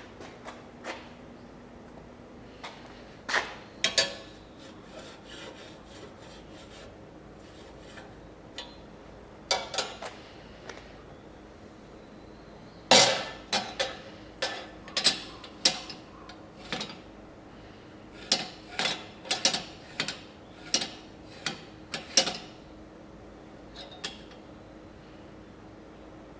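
Hand work on metal parts: irregular knocks, clinks and scraping, in clusters with short pauses between.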